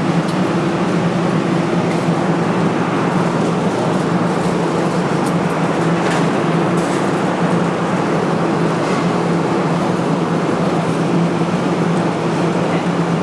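A steady, loud mechanical hum with a low drone that holds unchanged throughout.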